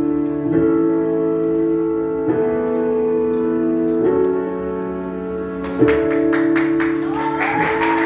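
Electronic keyboard music holding sustained chords that change about every two seconds. A quick, even ticking beat comes in about six seconds in, and voices begin singing near the end.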